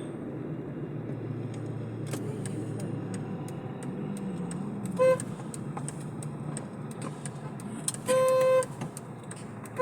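Steady car road and engine noise heard from inside a moving car, with a vehicle horn honking: a short toot about five seconds in and a longer, louder blast about eight seconds in.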